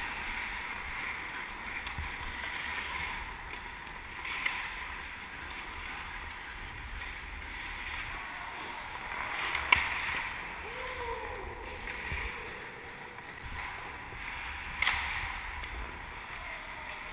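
Ice skate blades carving and scraping across rink ice in a steady hiss. A few sharp clacks of hockey sticks and puck cut through it, the loudest about ten seconds in.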